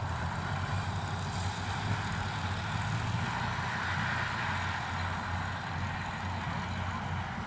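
Engine of a homemade crawler rice-hauling tractor running steadily, with a low, even hum.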